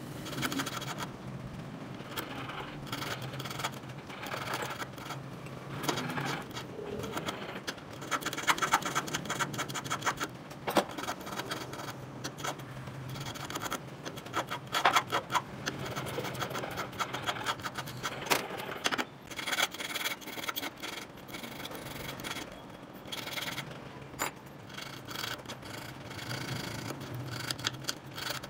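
Hand file rasping across a small 18k gold earring part in repeated short strokes, with a few sharp clicks along the way.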